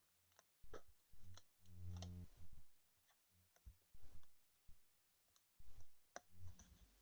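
Faint, irregular clicks and light handling noises from trading cards and their packaging being handled.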